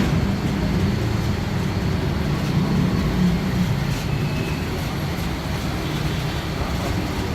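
Steady low mechanical rumble, even in level throughout, with a faint thin high tone above it.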